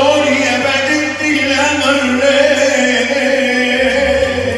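A man singing Arabic tarab through a microphone and amplifier, holding long notes, over electronic keyboard accompaniment with a steady low tone that shifts about four seconds in.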